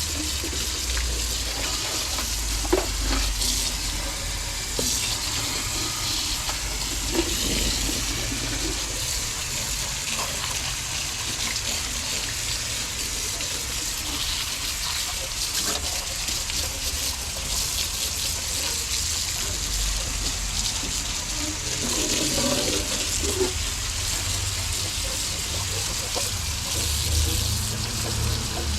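Water running and splashing steadily in a car's bare, sanded engine bay, rinsing off the sanding grit, with a few small knocks.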